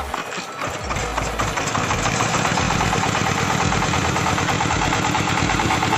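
Small stationary diesel engine of a generator set being hand-cranked and catching about a second and a half in, then running steadily with a fast, even beat.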